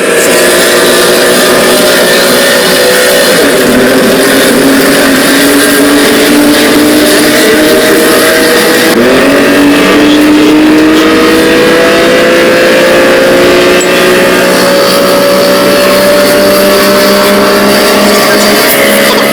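A motor vehicle engine accelerating, its pitch climbing slowly, with two sudden drops about three and nine seconds in before it climbs again, like shifts up through the gears.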